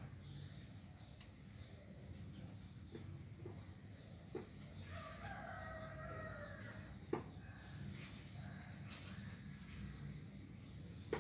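A pencil shading on sketchbook paper, a faint steady scratching rub with a few light ticks. About five seconds in a rooster crows faintly, one call of about two seconds that drops slightly in pitch.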